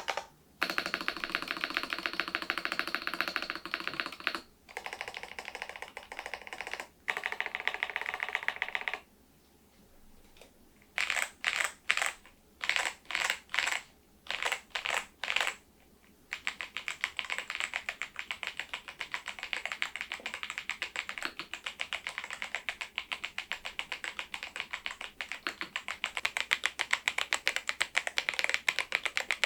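Typing on a Machenike K500 PRO mechanical keyboard with its stock switches and keycaps. Fast runs of keystrokes give way to a pause about nine seconds in, then about eight short separate bursts of presses, then steady continuous typing through the second half.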